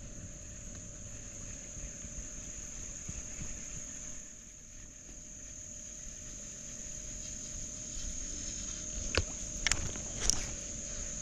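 Insects chirring in a steady high-pitched drone, over a low rustling noise, with a few sharp clicks and knocks near the end.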